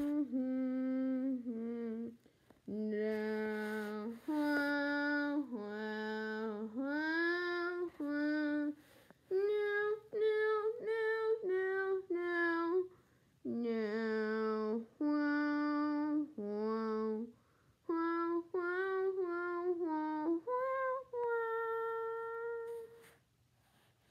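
A child's voice singing a wordless tune, a melody of held notes in short phrases with brief pauses, stopping about a second before the end.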